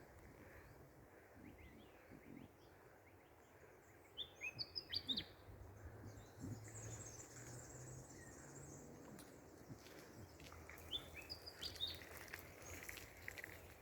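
Willie wagtail singing: short phrases of quick, sharp chirping notes, one about four seconds in and another about eleven seconds in, over faint outdoor background noise.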